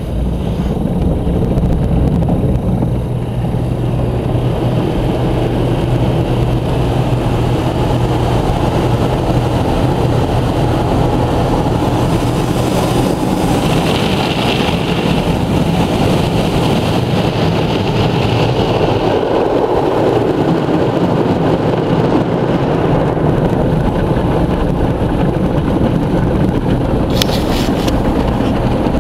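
Belanger Freestyler automatic car wash heard from inside the car: a steady rush of water and foam being sprayed onto the body, with cloth brushes rubbing over it. Under it runs a low hum that fades about halfway through.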